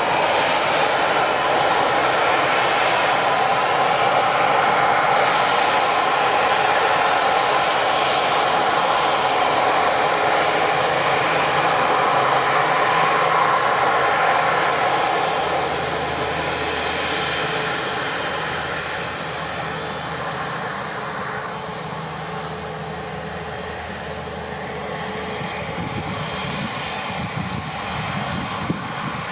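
Airbus A350-900's Rolls-Royce Trent XWB turbofan engines running at high power: loud, steady jet engine noise that eases off about two-thirds of the way through and stays lower.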